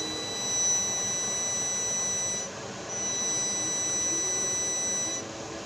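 Steady high-pitched sine-wave test tone driven through a power amplifier being pushed to its rated output of about 130 watts RMS near clipping. The tone runs for about two and a half seconds, breaks off briefly near the middle, then runs again.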